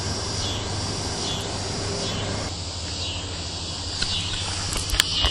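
Insects chirping in short high pulses, about one a second, over a steady low hum, with a couple of sharp clicks near the end.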